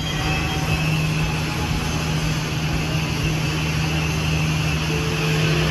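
Dual-shield flux-cored arc welding with .045 wire at about 21 volts: the arc runs with a steady hiss as a vertical uphill bead is pushed up the joint, over a steady low hum.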